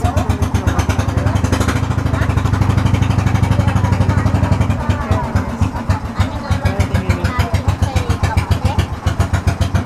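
Small engine running with a rapid, even thump, louder and steadier between about two and five seconds in.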